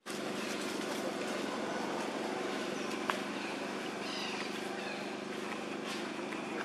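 Steady outdoor background noise with a low, even hum, broken by one sharp click about three seconds in and a few faint high chirps just after four seconds.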